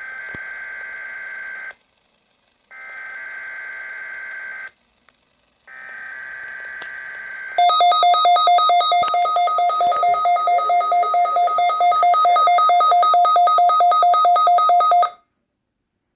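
Weather radio emergency alert broadcast heard through a Midland WR120EZ receiver. First come three buzzy two-second bursts of the SAME digital alert header, about a second apart. Then comes a loud, rapidly pulsing alert tone for about seven seconds, cutting off abruptly: the weekly test of the radio's tone alarm.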